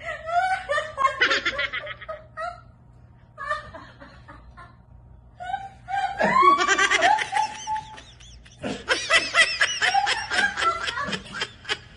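People laughing hard in bouts of rapid, breathy pulses, with a quieter lull a few seconds in.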